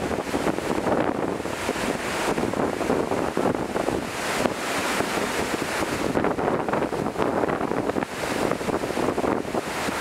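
Surf washing up onto a sand beach, a steady rushing with wind noise on the microphone.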